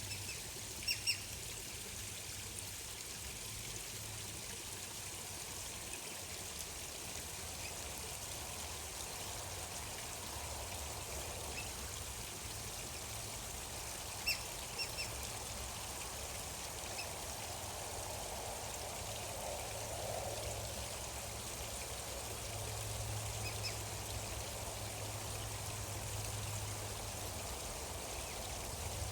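Gentle steady flow of water, like a trickling stream, with a couple of short high bird chirps about a second in and again about halfway through.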